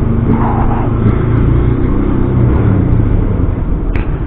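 Motorcycle engine running at low speed with a loud, low exhaust note, pitch easing up and down slightly as the bike rolls, with one sharp click near the end.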